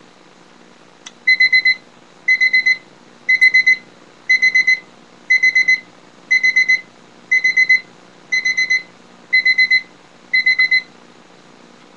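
Kansai quartz alarm clock's electronic alarm going off: a click, then bursts of about four quick, high, piercing beeps repeated once a second, ten bursts in all, before it stops.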